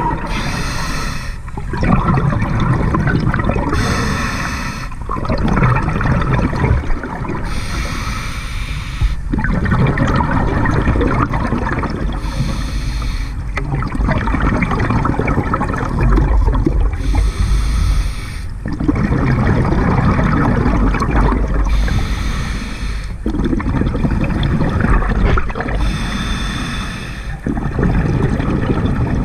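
Scuba diver breathing through a regulator underwater. A short hiss comes about every four seconds, each followed by a longer gurgling rush of exhaled bubbles.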